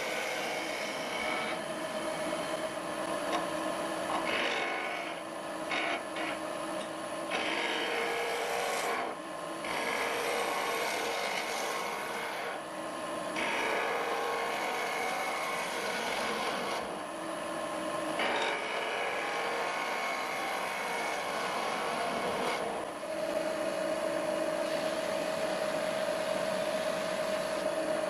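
Wood lathe running while a hand-held turning gouge and then a skew chisel shave the spinning wooden blank, a continuous scraping cut broken by short gaps where the tool lifts off. From about three quarters of the way through, the cutting stops and the lathe's steady motor hum runs on alone.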